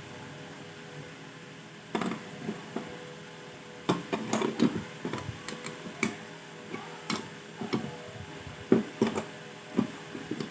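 Irregular clicks and knocks of parts and tools being handled while a motor starter is taken apart and restored. They begin about two seconds in, over a steady faint hum.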